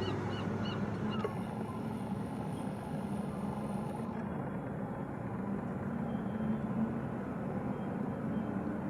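Steady low drone of a large container ship's engines with a humming undertone, mixed with outdoor noise. A few high bird calls in the first second.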